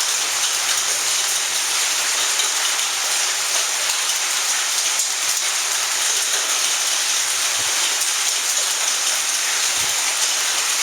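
Heavy hail falling: a dense, steady hiss and patter of many hailstones striking the ground and surfaces, unchanging throughout.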